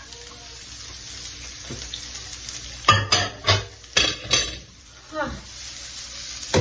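Sliced onions sizzling steadily as they fry in oil in a frying pan, being fried on until golden and crisp. Sharp clattering knocks from the pan and wooden spoon come about three to four and a half seconds in.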